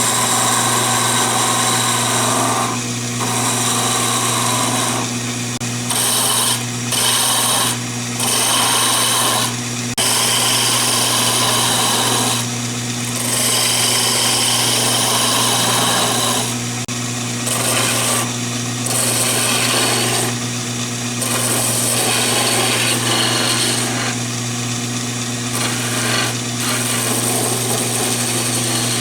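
Wood lathe running with a steady hum while a turning tool cuts into spinning yellow pine, a rough hissing scrape that stops and restarts many times as the tool is lifted and re-presented for each pass.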